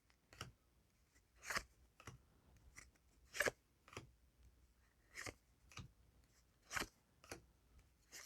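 Trading cards sliding against one another as they are flipped through one at a time: faint short swishes, mostly in pairs, every second or two.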